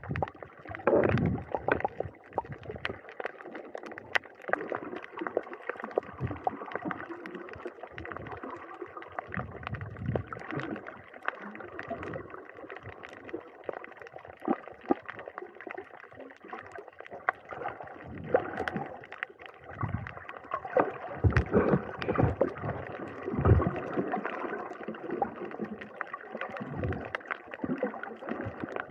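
Water gurgling and sloshing against the camera, muffled, with scattered small clicks and a few heavier low surges of water movement.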